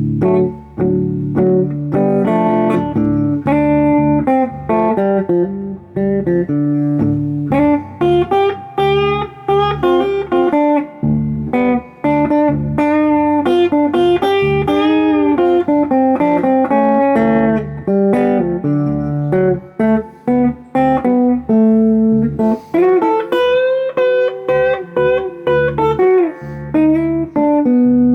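Electric guitar, a Harley Benton HB35 Plus semi-hollow, played through a Fender Sidekick Reverb 25 solid-state practice amp: blues licks and chords with a few string bends, a little gain, plenty of bass and some spring reverb.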